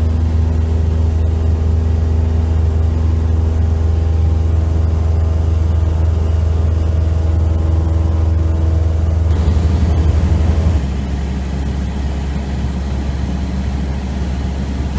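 Engine and propeller of a single-engine light aircraft droning steadily in flight, heard from inside the cabin. About eleven seconds in, the drone steps down lower and quieter.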